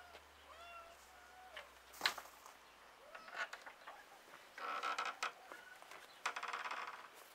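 Work shoes scuffing and scraping on a yard's hard ground, with a sharp knock about two seconds in and two longer rasping scrapes later on. A few short chirps near the start.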